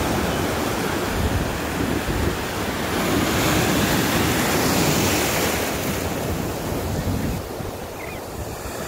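Ocean surf breaking and washing in around the shallows, a continuous rushing wash that swells a few seconds in and eases off near the end, with wind buffeting the microphone.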